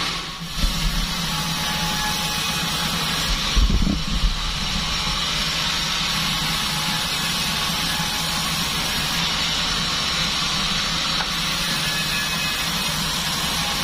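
Sawmill band saw machine running steadily with a constant low hum and a high hiss, with a few low thumps just under a second in and again around four seconds in.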